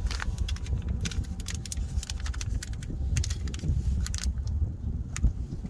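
Small clicks and light rattles of a battery terminal kit's packet and washers being handled.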